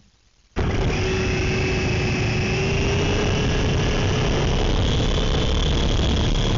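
Small electric motors and rotors of an S107C mini RC helicopter whining close to its onboard camera's microphone. The sound starts suddenly about half a second in, and the pitch of the whine creeps slowly upward.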